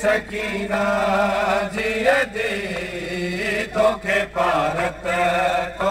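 A man's voice chanting a noha, a Shia mourning lament, into a microphone, holding long slow melodic notes with gentle bends in pitch.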